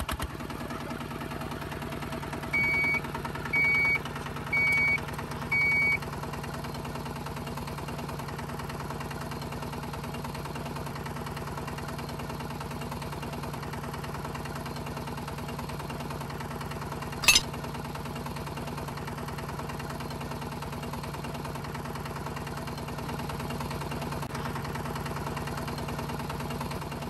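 Small motor of a DIY model tractor running steadily. Four short high beeps sound early on, and there is a single sharp click about seventeen seconds in.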